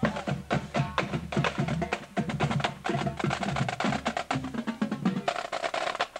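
Marching drumline of Pearl snare drums, tenor drums and bass drums playing a fast cadence: rapid stick strikes over deep bass-drum notes at several pitches.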